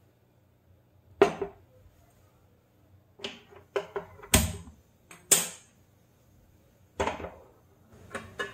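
A string of sharp, separate clicks and clanks, about a second apart: a hand-held spark gas lighter clicking at a gas stove burner to light it, and a stainless-steel pan lid being handled and set down on the pan.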